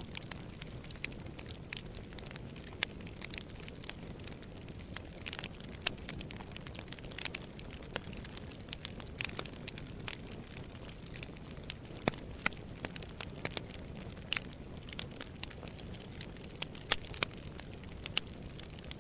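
Fire burning in a fireplace, crackling with scattered sharp pops over a low, steady rumble.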